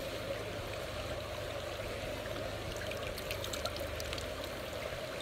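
River water rushing steadily past, with a few faint ticks a little after the middle.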